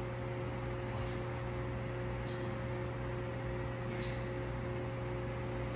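Steady machine hum with two constant tones over a low drone and an even hiss, with a faint tick a little over two seconds in.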